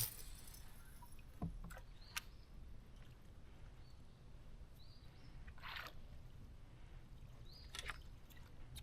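Quiet aboard a fishing boat: a faint steady low hum with a few light knocks and ticks from handling gear on board.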